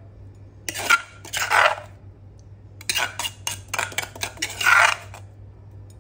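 A metal ladle scraping and clinking against a stone mortar while pounded chili paste is scooped out, in about four short bursts.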